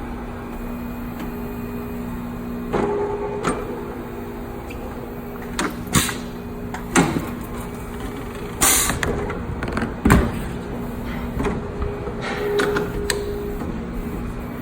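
Tire changer machine running with a steady motor hum as a new tire is worked onto the wheel, broken by several sharp knocks and short rushes of noise from the bead and mounting tool.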